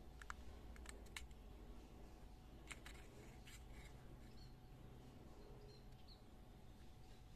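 Faint light clicks of an air rifle's rotary pellet magazine being turned and handled in the fingers: a few scattered ticks in the first four seconds over near-silent room tone.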